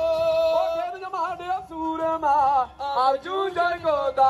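A voice singing in long held notes that waver in pitch, broken by short pauses.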